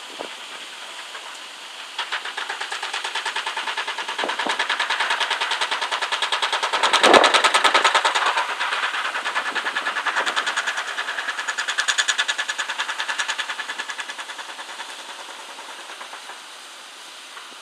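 Heavy earthmoving machine, presumably the road-building excavator, making a rapid metallic clatter of about ten strokes a second that builds up about two seconds in, is loudest near the middle, and fades away near the end.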